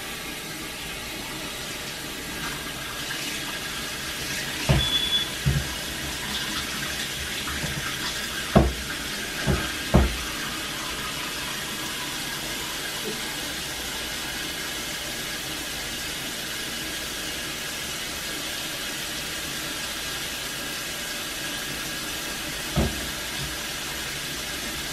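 Kitchen sink faucet running steadily while hair is washed under it. A handful of dull thumps and knocks come about five to ten seconds in, and once more near the end.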